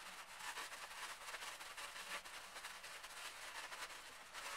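Faint rustling and crinkling of cloth and crumpled aluminium foil being unwrapped by hand, a continuous scatter of small scratchy rustles.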